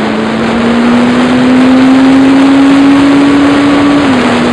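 Suzuki Bandit 600 inline-four engine pulling steadily under acceleration while riding, its pitch climbing slowly, then dropping a little near the end, over a heavy rush of wind noise on the microphone.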